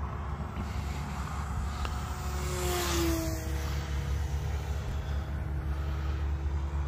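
Tower Hobbies P-51 Mustang RC plane flying by, its motor and propeller giving a thin whine that drops in pitch as it passes about three seconds in, over a steady low rumble.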